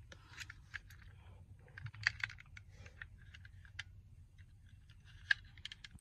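Scattered light clicks and taps at an irregular pace over a faint steady low hum, with one sharper click about five seconds in.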